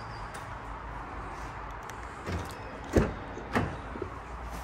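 A car door being opened and shut as someone climbs in: a couple of sharp clunks about three seconds in, the second half a second after the first, over steady background hiss.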